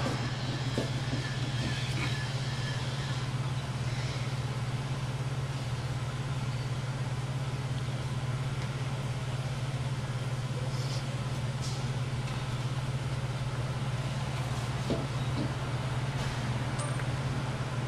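Steady low mechanical hum under a constant background rush, with a few faint taps.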